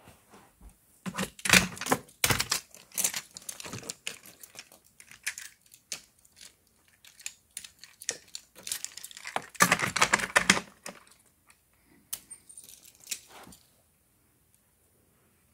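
Plastic toy trains and pieces being handled on a plastic playset: irregular clicks, clatters and rustling, busiest about a second in and again around ten seconds in.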